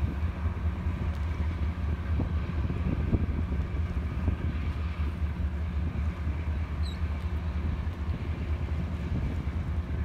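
Harbour tugboat's diesel engines running with a steady low drone, with wind on the microphone.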